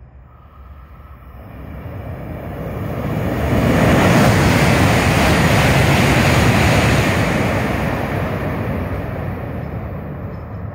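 A 700 series Shinkansen passing through the station at high speed without stopping. A rushing noise builds over about three seconds and holds for about three seconds as the cars go by, then fades as the train draws away.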